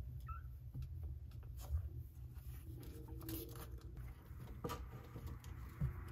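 Quiet scuffling: small scratches and clicks as Ragdoll kittens paw and shuffle at the edge of their box, over a low steady hum.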